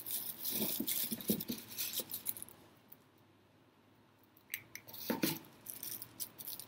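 Braided plastic-bag strands crinkling and rustling, with small clicks and taps, as they are pressed around a bowl mould. The handling comes in two spells with a quiet pause of a second or two in the middle.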